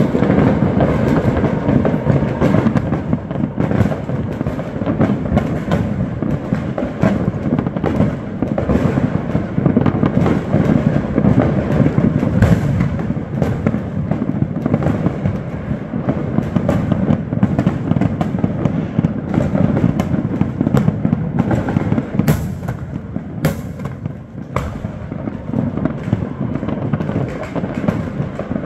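Many fireworks going off at once, a dense, unbroken run of pops, cracks and bangs over a steady rumble. A couple of sharper, louder cracks stand out about three-quarters of the way through.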